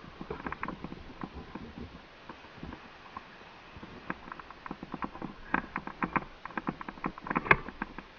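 Irregular footsteps and light clicks and knocks of a player moving during an airsoft game, getting busier in the second half, with the sharpest knock near the end.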